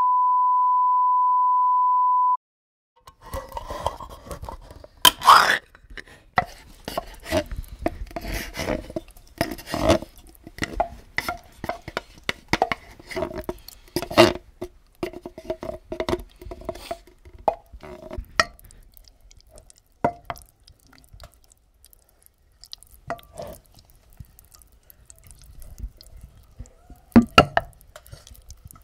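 A steady 1 kHz test tone for about two and a half seconds, then close-up wet squelching of spaghetti and sausages in tomato sauce being stirred and squashed in a metal bowl, with many small sticky clicks and plops.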